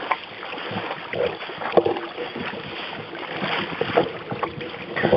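Water splashing and sloshing against a canoe as a Cesky Fousek gundog swims alongside, with small irregular knocks on the hull and a louder splash near the end.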